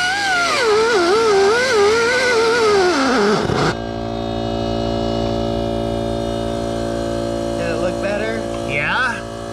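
Music with a wavering melody for about three and a half seconds, then an abrupt switch to a steady machine hum with a low buzz, with a few brief sliding tones near the end.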